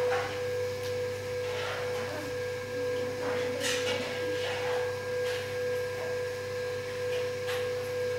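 A steady, unchanging hum-like tone that holds one pitch without fading, with soft hissy sounds every second or two.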